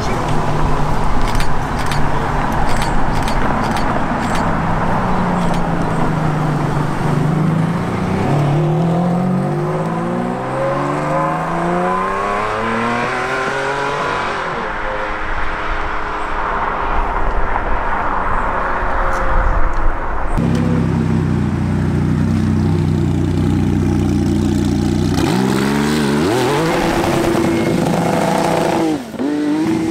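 Ferrari Enzo's V12 engine accelerating away, its note climbing in pitch again and again through the gears. About two-thirds of the way in the sound changes abruptly to another sports car engine revving and climbing in pitch.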